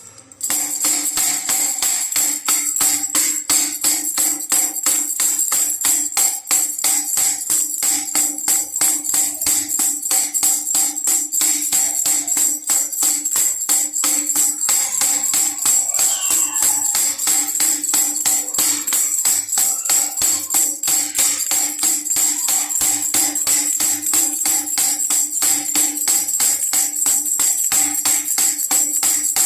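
Baby rattle shaken in a fast, steady rhythm, with a bright jingling ring over a steady low hum.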